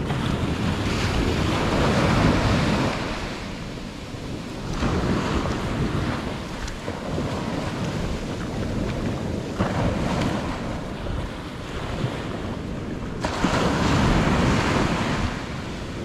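Surf breaking and washing up the beach, swelling and fading every few seconds, with wind rumbling on the microphone throughout.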